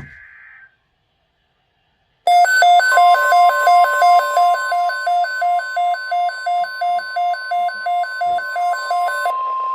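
Weather alert radio sounding its alarm: loud beeping at about three beeps a second for some seven seconds, over the steady 1050 Hz NOAA Weather Radio alert tone, which starts about three seconds in and holds. The alarm signals a newly issued watch. Just before the beeping, a fainter tone cuts off under a second in, followed by a short silence.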